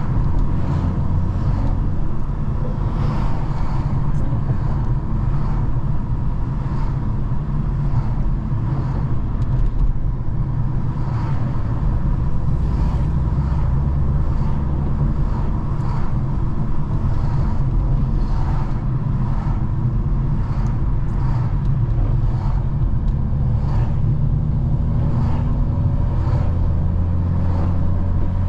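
BMW 435i's turbocharged N55 inline-six, tuned to about 500 hp, running at low steady revs while the car drives. Near the end the pitch rises slightly as it picks up speed.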